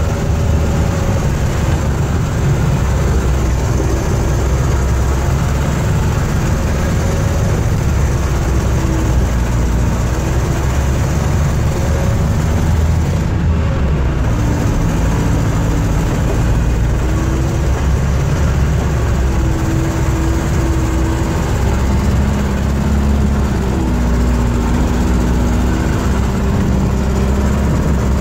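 Vintage snowcat's engine running on the move, heard from inside its cab: a loud, steady low drone whose pitch drifts up and down a little.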